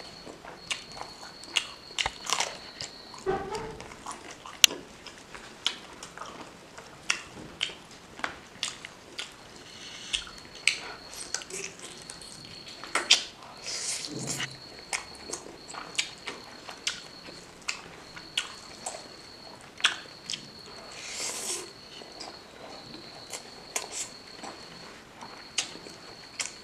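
Chewing and biting of pork and rice: irregular wet mouth smacks and sharp clicks, the sharpest about five seconds in.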